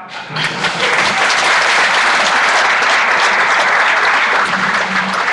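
Audience applauding loudly, breaking out suddenly and reaching full strength within about half a second.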